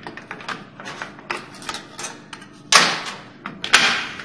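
Metal clicks and clanks from drum brake hardware as a return spring is worked into place against the brake shoes and backing plate. A rapid scatter of small ticks runs throughout, with two louder clanks about a second apart near the end, each ringing briefly.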